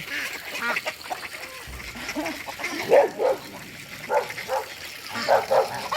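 Short animal calls from the farm birds or a dog, coming in quick pairs about three seconds in and again near the end.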